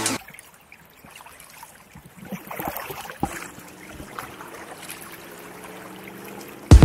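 Quiet water sounds of kayak paddling on calm water: paddle blades dipping with small splashes and drips, a few sharper splashes two to three seconds in. Background electronic music cuts out at the start and comes back loudly just before the end.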